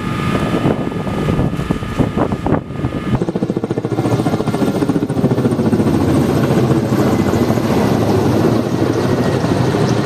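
A firefighting helicopter's rotors give a fast, steady chop as it hovers overhead. This follows a cut about three seconds in. Before the cut there is a jumble of engine noise and knocks with a steady high beeping tone.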